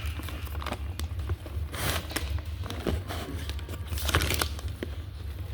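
Food wrapping being handled and unfolded, crinkling in irregular rustles, loudest about two and four seconds in, over a steady low hum.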